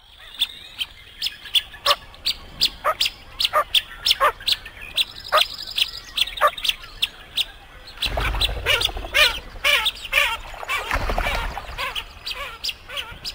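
Blue-winged teal calling: a quick, uneven run of short, high peeping whistles, with a denser burst of chattering calls about eight seconds in and again near eleven seconds.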